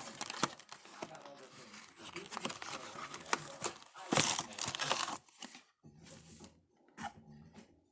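A trading card pack's wrapper being torn open and crinkled, with the loudest rip about four seconds in.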